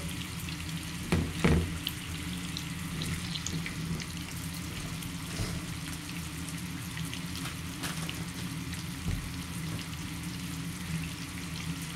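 Scallops and chorizo slices sizzling steadily in oil and garlic butter in a non-stick frying pan, with fine crackles throughout. Two short knocks come about a second in.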